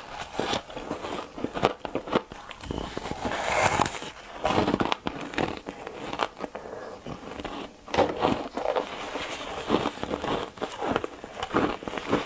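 Soft, foamy green ice being bitten and chewed: an irregular run of crisp crunches and crackles.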